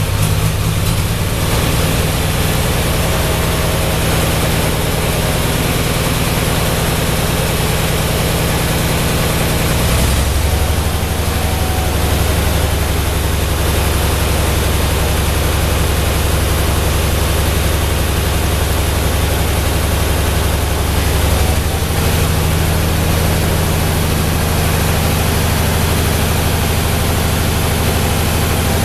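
Ford 8N tractor engine running steadily at idle just after starting. Its note shifts about ten seconds in and again about twelve seconds later.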